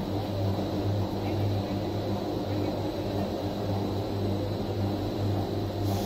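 PET strapping-band extrusion line running, a steady low machine hum and drone from its motors and roller drives.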